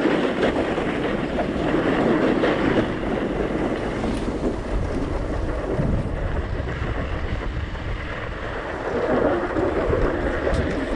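Snowboard sliding and scraping over groomed snow, a steady rough hiss that surges and eases, with wind buffeting the GoPro's microphone.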